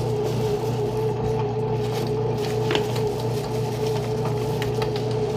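Bread machine motor running with a steady hum and a constant whine, with a few faint clicks over it.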